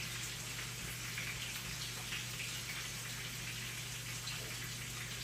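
Steady kitchen background noise: an even hiss with faint scattered crackles over a low steady hum.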